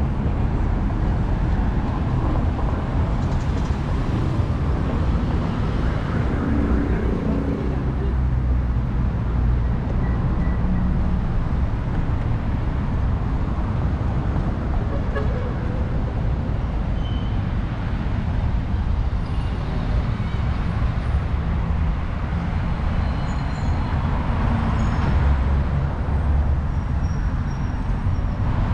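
Steady road traffic noise from cars and vans passing on a busy city avenue, a continuous rumble without pauses.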